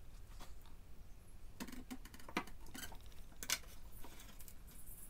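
A few faint, sparse taps and clicks, about five in the middle stretch, as a wooden board and a metal square are set in place on a cabinet frame on the workbench.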